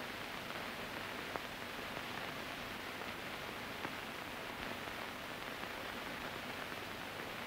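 Steady hiss of an old film soundtrack, with a couple of faint clicks.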